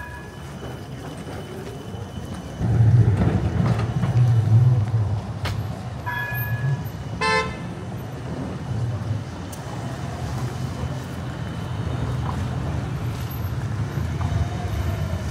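Street traffic: a motor vehicle passes close about three seconds in, a low rumble that then settles. About six seconds in there is a short ringing tone, followed a second later by a brief horn toot.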